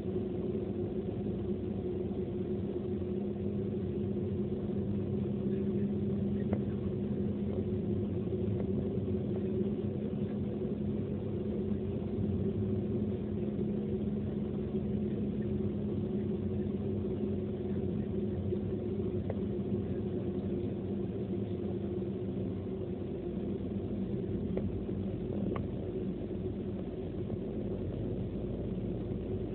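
Car cruising at a steady speed, heard from inside the cabin: an even engine hum over road and tyre rumble.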